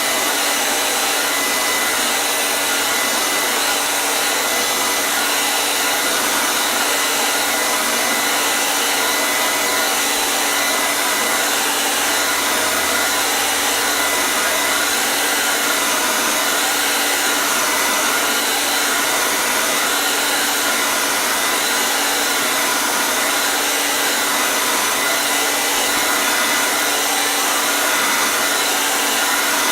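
Hair dryer running steadily: an even, loud rushing hiss with a faint steady whine in it.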